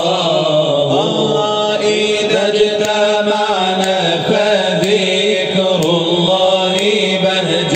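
A man chants an Arabic devotional nasheed, drawing out one long, wavering, ornamented line with no break for words. A steady low drone holds underneath.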